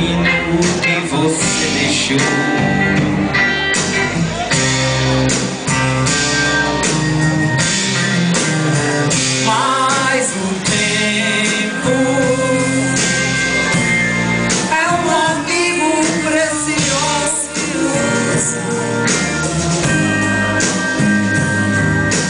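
A live band playing a song: electric guitars and drums with singing.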